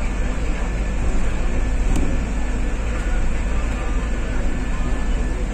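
Steady low rumble of an apron shuttle bus's engine and running gear, heard from inside the cabin as it moves slowly, with a single sharp click about two seconds in.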